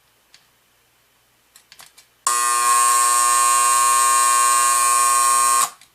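1930s Hammond electric alarm clock's alarm going off: a loud, steady electric buzz that starts abruptly about two seconds in, holds for about three and a half seconds and cuts off sharply. A few faint clicks come before it.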